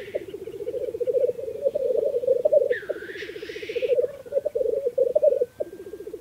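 Male black grouse lekking: a continuous bubbling, cooing 'rookoo' chorus from several birds, with one loud hissing 'sneeze' call about two and a half seconds in.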